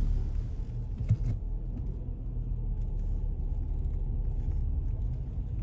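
Low, steady rumble of a car heard from inside the cabin while driving: engine and road noise. A few faint clicks come about a second in.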